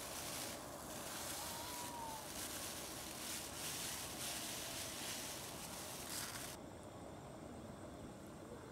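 Thin plastic bag crinkling and rustling as dry rice is shaken out of it into a pot of tomato sauce, over a steady hiss. The rustling and hiss stop abruptly about two-thirds of the way through, leaving a quieter steady background.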